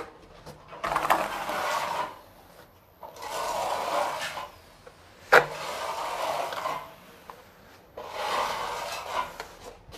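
Flat steel trowel spreading wet cement tile adhesive across a rendered wall: four long scraping strokes, with a single sharp knock about halfway through.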